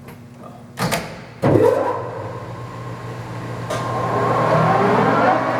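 TOS SN50 engine lathe started under power: two clunks as the spindle is engaged, then the geared headstock running up to speed with a whine that rises in pitch and grows louder. It runs quiet and smooth.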